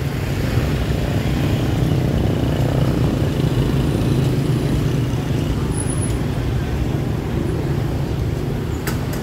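Steady street traffic noise, motor vehicle engines running close by as a continuous low rumble, with a single sharp click near the end.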